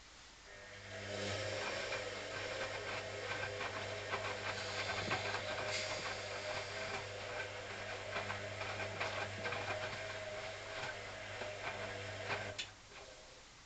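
Hoover CA232 washing machine running a steady electric hum with rushing water and small rattling clicks over it, which starts about half a second in and cuts off abruptly near the end.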